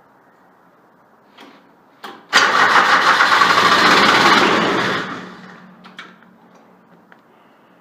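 Starter cranking the Grasshopper 721D's diesel engine hard for about two and a half seconds without it catching, then winding down; a cold-weather start attempt after the glow plugs were pre-heated. A couple of short clicks come just before the cranking.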